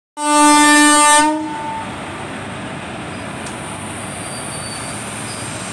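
WAP-4 electric locomotive's horn sounding one blast about a second long, which trails off, followed by a steady, even noise from the locomotive.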